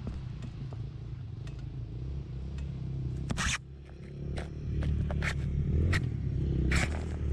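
Off-road vehicle engine idling with a steady low hum, dipping briefly about halfway and then running a little louder. Several sharp scrapes and clicks sound close to the microphone, the loudest about three and a half and nearly seven seconds in.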